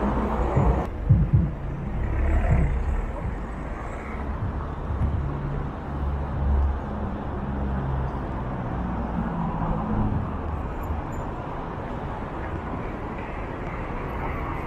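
A small hatchback car drives past close by, then the low hum of car engines and traffic on a city street, settling into steady traffic noise.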